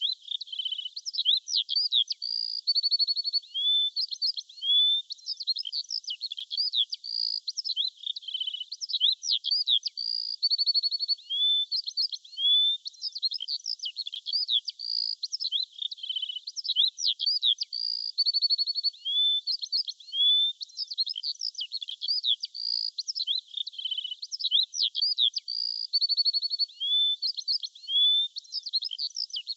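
Small songbirds chirping and twittering in quick high calls, with short trills and rising whistles. The same stretch of song comes round again about every eight seconds, as a loop.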